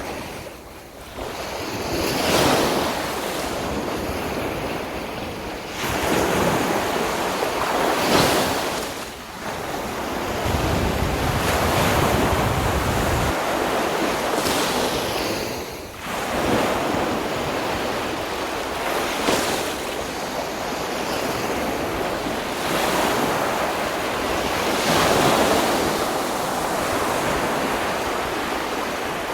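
Sea waves breaking and washing up on a sandy beach, swelling every few seconds in an unbroken surf noise.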